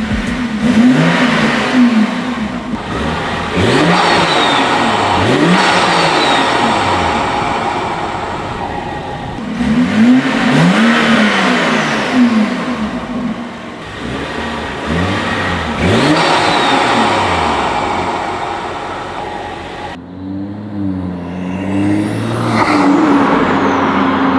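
BMW N55 turbocharged straight-six, fitted with an aftermarket front-mount cold air intake, revved up and down again and again, with loud intake rush over the engine note. Near the end the sound turns duller, with smaller wavering revs.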